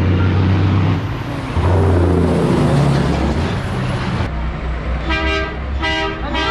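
Heavy diesel engines of semi-truck tractor units running loud as they drive down a drag strip. About four seconds in the sound changes abruptly, and a truck's air horns sound in several short blasts.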